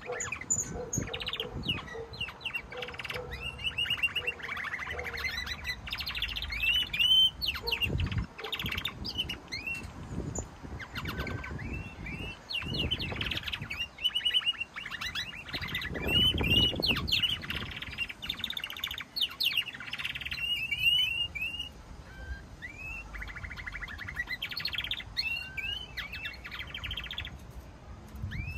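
Domestic canaries singing: long rolling trills and runs of rapid repeated chirps, mixed with quick rising and falling whistled notes, one phrase running straight into the next.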